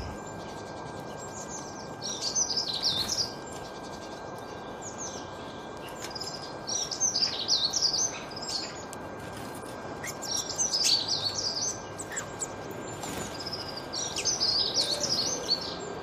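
Small songbirds chirping in short bursts of rapid high notes, about every four seconds, over a steady faint background hiss.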